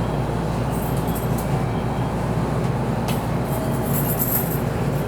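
Steady low rumble of a train, with a faint click about three seconds in.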